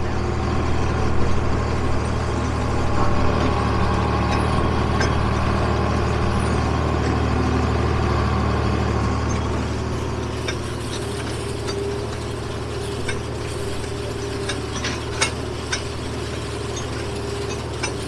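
Farm tractor engine running steadily while pulling a wheel hay rake, with a few light clicks and rattles in the second half.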